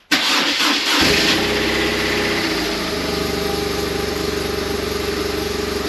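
BMW R1200R's boxer twin engine started on the electric starter, catching about a second in, louder for a moment, then settling into a steady idle. It is run to circulate the fresh oil after an oil change before the level is rechecked.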